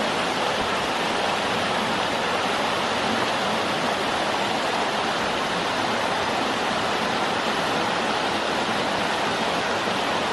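Waterfall pouring a heavy flow of water, a steady rushing roar.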